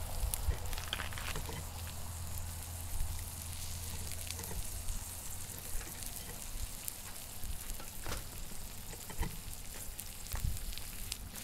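Trout frying in butter and coconut oil in a cast iron skillet over a campfire: a steady sizzle with scattered sharp pops.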